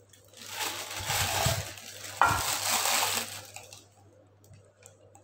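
Clear plastic piping bag crinkling and rustling as it is handled and opened into a small steel cup, with a sharp knock a little over two seconds in. The rustling dies away about four seconds in, leaving only faint ticks.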